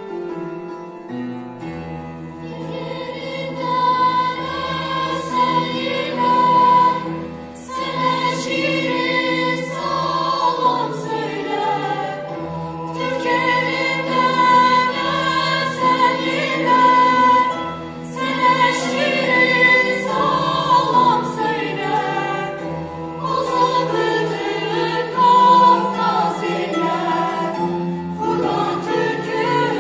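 Choral music: a choir singing sustained, moving vocal lines over a low bass part.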